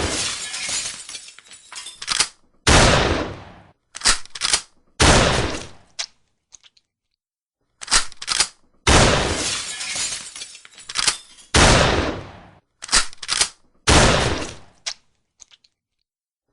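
A series of shotgun shots: about five sharp blasts, each with a long fading tail, several of them preceded by a quick run of two or three short clicks.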